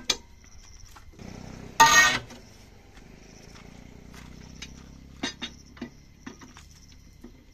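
Metal clatter of a long wheel brace working the wheel nuts of a truck's rear dual wheel: one louder clank about two seconds in, then a few light clicks. Insects buzz steadily behind.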